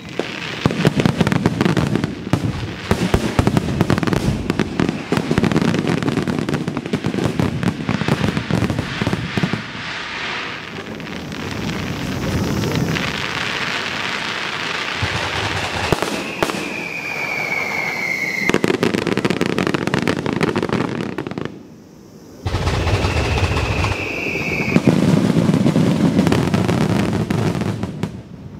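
Aerial fireworks going off: deep booms of bursting shells under fast, dense crackling from crackle-star effects. Twice in the second half a short whistle falls slightly in pitch.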